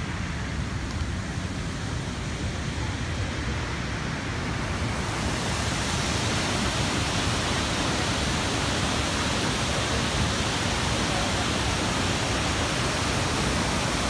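Steady rushing of a large waterfall, a continuous even noise that grows louder and brighter about five seconds in.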